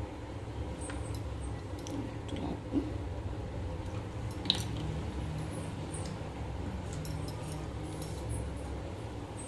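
Steady low kitchen hum while oil heats in a kadai, with a few light clicks and one sharper clink of a utensil about halfway through.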